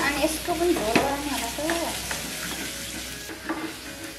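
Buffalo intestine sizzling as it is stir-fried for bhutuwa in a pan, with a utensil stirring and a few sharp clicks against the pan.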